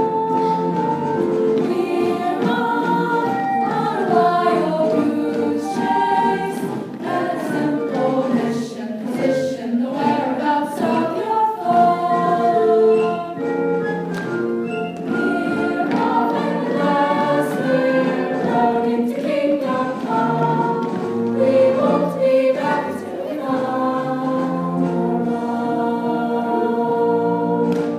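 Stage-musical ensemble of cast members singing together in chorus over instrumental accompaniment.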